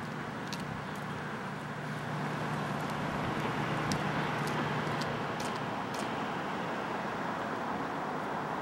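Road traffic on a city street: a steady rush of passing cars, with a low hum through roughly the first five seconds.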